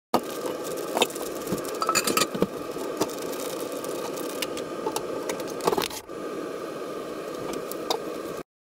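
Fork mashing boiled sweet potatoes in a foil pan: irregular scrapes, squishes and clicks against the aluminium, with a plastic bag rustling as sugar is shaken out, over a steady background hum.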